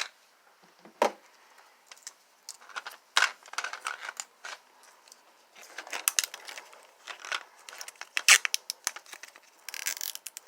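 Plastic packaging being cut and torn open with a knife: irregular crinkling, scraping and crackling with sharp clicks and knocks of the knife against the desk.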